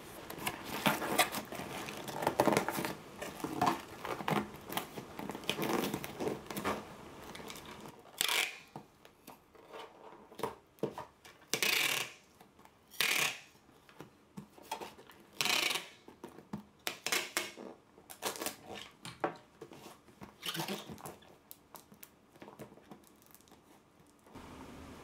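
Paper, tissue and cardboard rustling and crinkling as a box is packed. Then packing tape is ripped off a handheld tape dispenser in several short pulls a few seconds apart.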